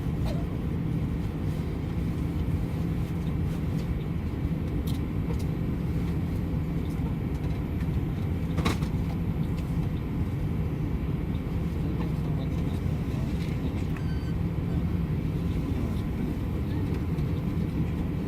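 Steady low rumble of an airliner's passenger cabin: engine and air-system noise, with one brief click about halfway through.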